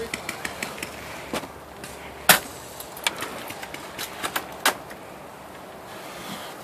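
Scattered single sharp cracks and clicks from airsoft gunfire and BBs striking the maze walls, the loudest about two seconds in and others at irregular intervals, over low steady background noise.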